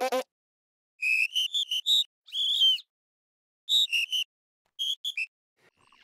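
Cartoon insect characters, an ant and a ladybird, chattering in high-pitched chirping squeaks instead of words. The chirps come in four short clusters separated by brief silences.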